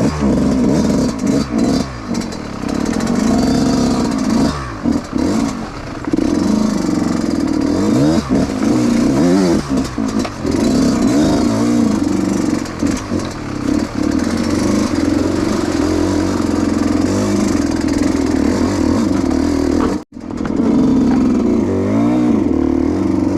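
Dirt bike engine revving up and down under a varying throttle as it is ridden over rough off-road trail, with some clatter from the bike.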